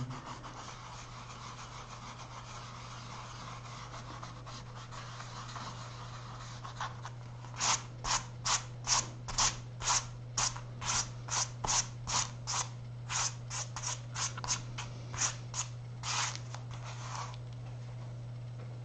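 Pencil eraser rubbing gently over watercolour paper to lift pencil lines: at first a soft, continuous rubbing, then from about seven seconds in a run of some twenty quick strokes across the paper, about two a second, that stop shortly before the end. A steady low hum runs underneath.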